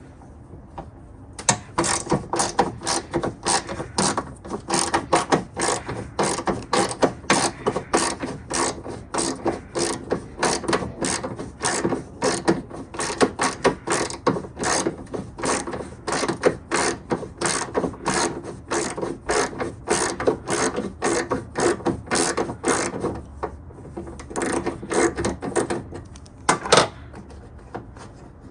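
Ratchet wrench clicking in quick, repeated strokes as a bolt on the car door is worked out. The clicking begins about two seconds in, eases off near the end and ends with a single click.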